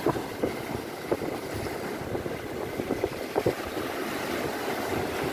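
Wind buffeting the microphone over the steady wash of sea waves, with a few short knocks.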